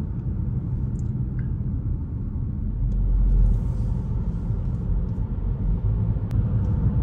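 Car driving on the road: a steady low rumble of engine and tyres, swelling briefly about three seconds in.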